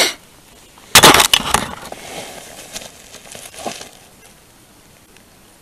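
Dry twigs and wood shavings being crunched and snapped by hand. There is a short rustle at the start, a cluster of sharp cracks about a second in, then softer crackling that dies away around four seconds in.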